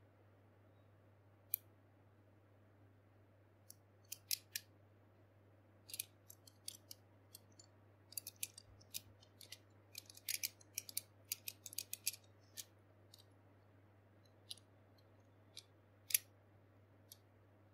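Plastic and metal parts of Beyblade spinning tops clicking and ticking as they are handled and turned in the fingers: scattered sharp clicks, thickest in the middle stretch, then a few single clicks near the end.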